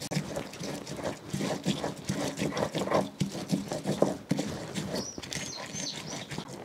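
Stone pestle grinding dried guajillo chiles, garlic and spices in a volcanic-stone molcajete: an irregular run of rough scraping and crunching strokes.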